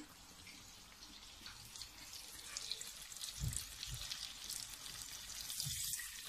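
Vinegar and asparagus broth hitting a hot pan of browned tuna pieces and sizzling faintly, the hiss and crackle building over the first few seconds. There are two dull knocks about three and a half seconds in.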